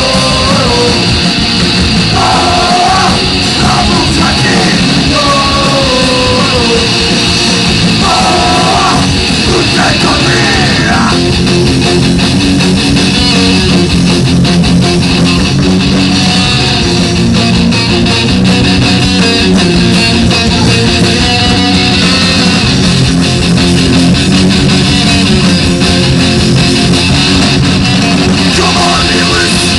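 Punk band playing live and loud, with electric guitar driving the music. A singer shouts short phrases into the microphone over roughly the first ten seconds, then the band plays on without vocals until the singing comes back near the end.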